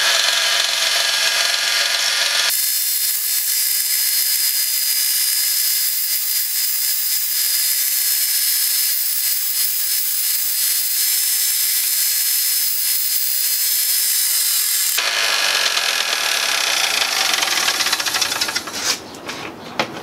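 Delta benchtop belt-and-disc sander running steadily while a small workpiece is sanded against it, trimming the piece down to fit. The sound dies away shortly before the end.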